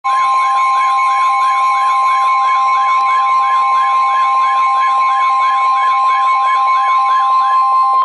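Midland weather radio sounding a NOAA Weather Radio alert: a loud, steady warning alarm tone with a warbling siren that rises and falls about two and a half times a second. Both cut off suddenly at the end. It signals that a warning message is about to be broadcast.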